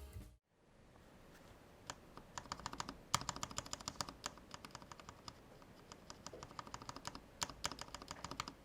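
Typing on a Vulcan X KBDfans MAJA ergonomic aluminium custom keyboard with linear Cherry MX Black switches, brass plate, foam-dampened case and GMK keycaps: a run of quick, uneven keystrokes that starts about a second and a half in and goes on nearly to the end.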